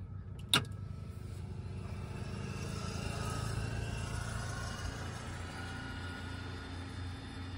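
A sharp click about half a second in, then a steady low electrical hum with a faint whine that rises a little in pitch over the next few seconds, as the light aircraft's cockpit avionics power up and boot.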